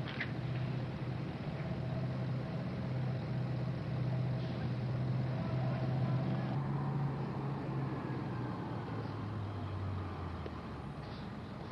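A large engine running steadily with a low drone. Its pitch drops slightly and the level eases off a little near the end.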